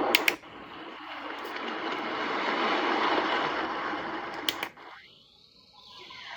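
Easysleep EWN 12 sound machine playing one of its steady hissing noise sounds through its small speaker. A pair of sharp button clicks comes just after the start and again about four and a half seconds in. After the second pair the sound fades almost to nothing, and the next sound fades in near the end.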